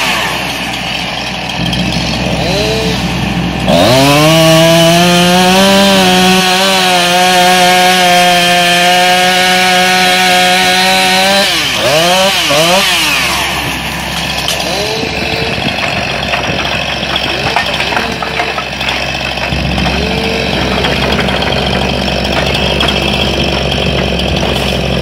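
Two-stroke chainsaw blipped a few times, then held at full throttle for about eight seconds while cutting through a fallen log, before a few more quick revs and dropping back to idle. A diesel excavator engine runs steadily underneath.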